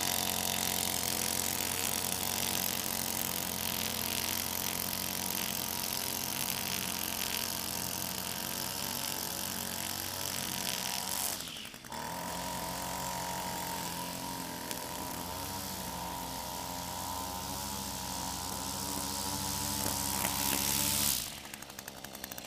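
Two-stroke gas string trimmer (Weed Eater) running at high speed while cutting grass, a steady engine note with a brief break about halfway. Its exhaust port has just been cleaned of carbon, which gave back power, but it still runs a little rough; the owner suspects the air filter or fuel mixture. The engine note drops away near the end.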